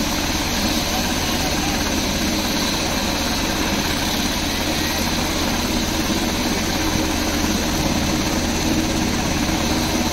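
Black Hawk helicopter idling on the ground, its turbine engines and rotor making a steady, unchanging drone.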